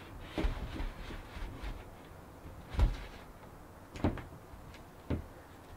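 Large MDF sheet knocking and bumping as it is tilted upright under a ceiling lower than the sheet is tall, a handful of dull knocks with the loudest a little before the middle.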